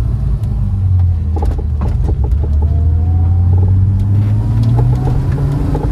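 BMW E30's inline-six engine heard from inside the car while driving, pulling in gear with its pitch rising slowly for a few seconds, then easing back about four and a half seconds in.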